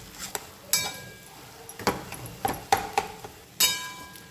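Spatula stirring and scraping mashed potato and peas in a stainless steel kadai, knocking against the pan in about five short ringing clinks, the loudest a little past halfway.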